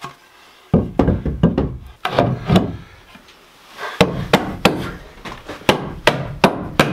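Hammer striking a wooden 2x4 framing board, driving it into place in a window rough opening. There is a quick run of blows about a second in, a pause, then steady blows at about three a second from about four seconds in.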